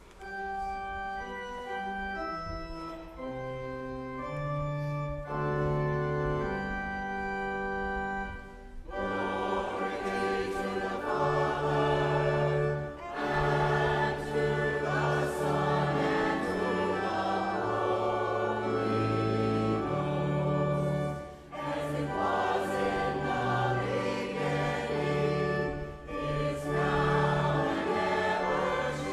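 Church organ playing held chords alone. About nine seconds in, a choir joins and sings a hymn with the organ, with short breaks between phrases.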